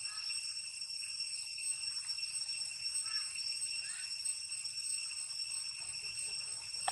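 Steady high-pitched insect drone that holds one pitch without a break, with a few faint short chirps over it.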